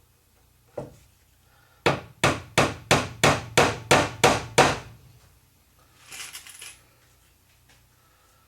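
Hammer blows: a single knock, then a run of nine sharp strikes at about three a second. A short scraping rattle follows near the end.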